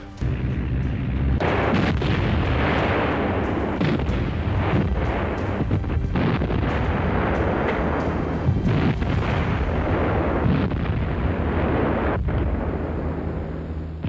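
Artillery fire: field howitzers firing and shells exploding, many overlapping blasts over a continuous rumble, building up about a second and a half in.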